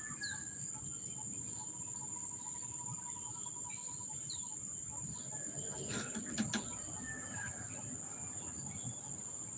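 Steady high-pitched insect chorus, with a few faint bird chirps and a couple of soft clicks about six seconds in.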